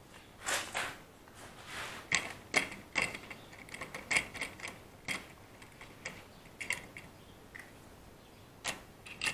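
Irregular clicks and clatters of small hard objects being handled, with quiet gaps between them.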